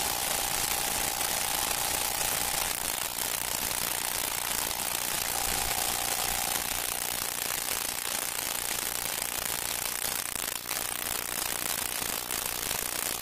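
Steady hiss with faint ticks, and a thin high tone that sounds for a few seconds at the start and again mid-way; no music or voices.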